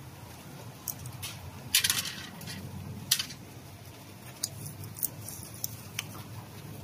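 Small metal parts of a VE-type diesel injection pump clicking and clinking as they are handled and fitted by hand: scattered sharp clicks, with a louder cluster about two seconds in and another sharp click about a second later.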